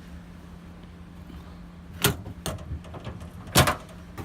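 Two sharp clacks about a second and a half apart, the second louder, as the latches and lid of a bed-liner-coated truck-bed toolbox are worked open, over a faint steady low hum.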